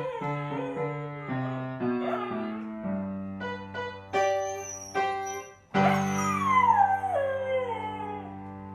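A dog howling along to instrumental music with held notes, its howls sliding downward in pitch. The longest falling howl comes about six seconds in.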